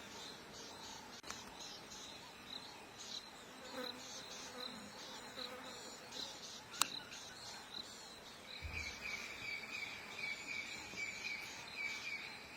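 Insects calling: high, repeated chirping throughout, joined about two-thirds of the way through by a steady pulsing trill a little lower in pitch. There is one sharp click a little past halfway.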